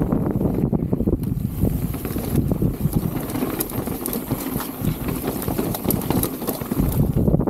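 Specialized Status 160 full-suspension mountain bike riding a dirt bike-park trail: a steady loud rumble of tyres over dirt and rocks, with scattered clicks and rattles from the chain and bike, and wind buffeting the camera's microphone.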